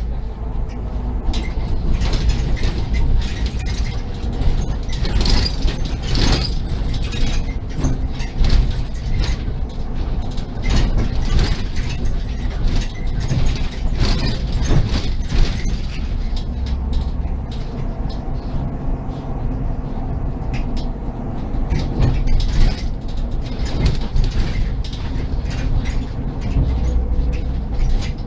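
Inside a SOR NB 12 city bus on the move: a steady low engine and road rumble under constant rattling, clicking and creaking of the bus's interior fittings.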